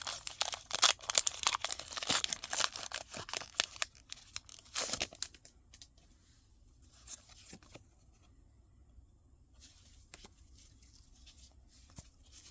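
Foil booster-pack wrapper being torn open and crinkled for about the first four seconds, with one more short crinkle near five seconds, then only faint handling clicks.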